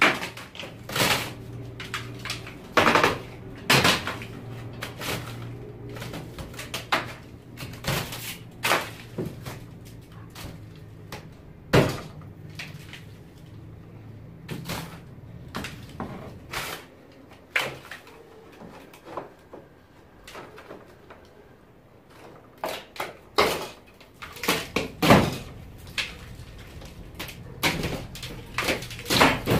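Hammer and pry bar knocking and prying at old wooden tongue-and-groove ceiling boards, with irregular sharp knocks and cracks of wood as the boards break loose. The boards are rotten and termite-eaten.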